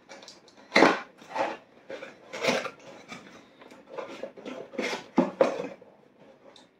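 A sheet of paper rustling and crinkling as it is unfolded and handled, in uneven rustles with a few sharper crinkles.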